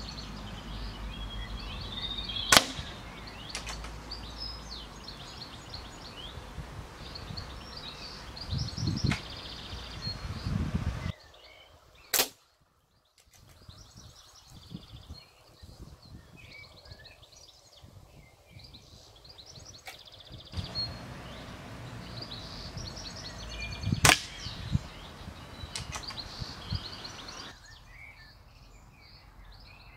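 Three single shots from a break-barrel .177 air rifle, each a sharp crack, about 2.5, 12 and 24 seconds in. Birds chirp in between.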